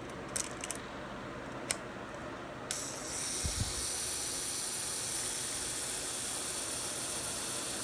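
A few light clicks from an old film camera's mechanism being handled, then a steady hiss starts a little under three seconds in and keeps on.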